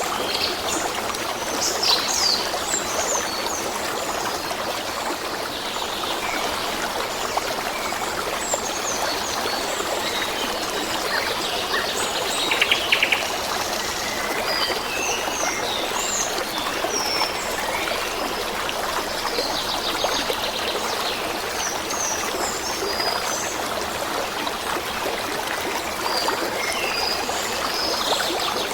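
Steady flow of a small stream, with birds chirping in short high calls scattered over it. About twelve seconds in, a brief louder rapid rattle lasts about a second.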